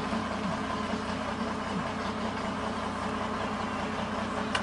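Engine idling steadily, with one sharp click near the end.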